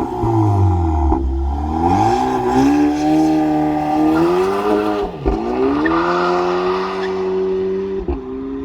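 Exhaust of a stage-2 tuned VW Polo AW GTI's turbocharged 2.0-litre four-cylinder, with Milltek downpipe and cat-back exhaust, as the engine revs. The pitch falls, climbs over a few seconds, drops sharply about five seconds in, then climbs again and holds.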